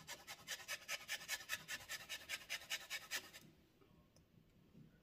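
Lemon peel rubbed against a flat metal hand grater, quick rasping strokes at about six a second, as the lemon is zested. The grating stops about three and a half seconds in.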